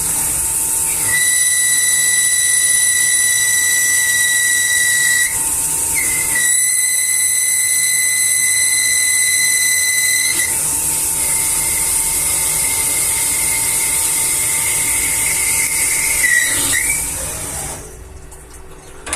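CNC machine running, likely while making shaft couplings: a steady high whine over a high hiss. The whine drops out for about a second about five seconds in, comes back weaker after about ten seconds, and the sound fades out near the end.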